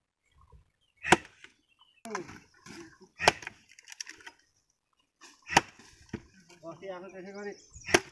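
Axe chopping planks of alder (Utis) wood into firewood: four sharp, loud strikes a little over two seconds apart.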